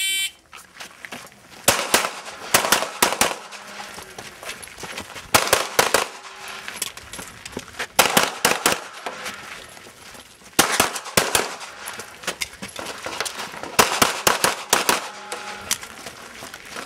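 A competition shot-timer start beep, then a pistol firing an IPSC course of fire: quick strings of several shots, with pauses of a few seconds between strings as the shooter moves to new positions.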